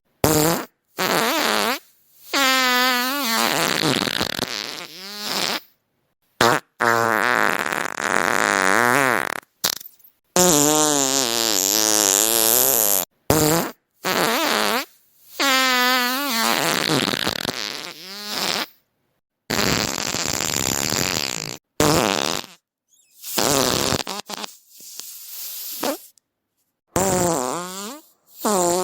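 A string of about a dozen fart sounds, one after another, each lasting under a second to a few seconds and separated by abrupt dead silence. Many are long and pitched with a wavering, fluttering tone; others are short and raspy.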